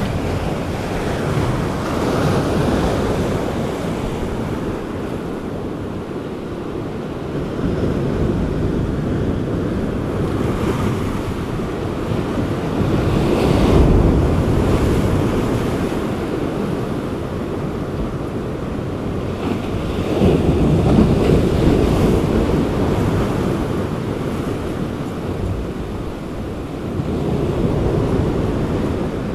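Sea surf breaking and washing up the shore in surges every six or seven seconds, with wind buffeting the microphone.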